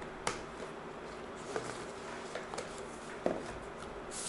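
Cardboard packaging being handled: a few light clicks and taps as the box and its insert are lifted and turned, with a sharper knock a little past three seconds in.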